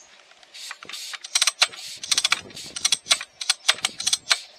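Vintage Husqvarna 1100 chainsaw being readied to start: a run of irregular, rapid metallic clicks and ratcheting, growing denser and louder about a second in, with no engine running.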